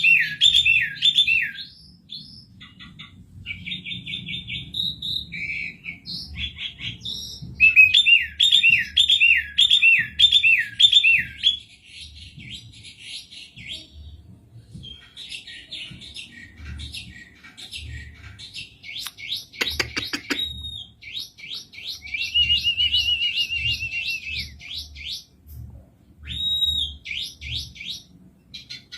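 Asian pied starling (pied myna) singing: runs of repeated swooping whistled notes mixed with rapid chattering phrases, and a fast wavering trill about three-quarters of the way through.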